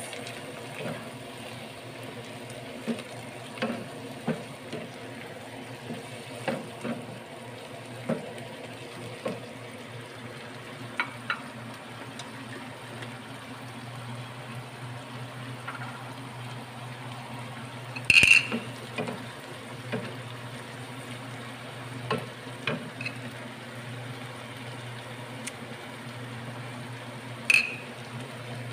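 Sliced green chillies simmering and sizzling steadily in a little water in a nonstick frying pan, with a wooden spatula stirring and knocking against the pan now and then; the two loudest knocks come about two-thirds of the way through and near the end.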